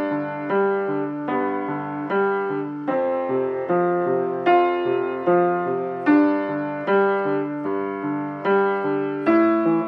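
Upright piano played with both hands: a steady, evenly paced pattern of struck chords and single notes, each one ringing and fading before the next.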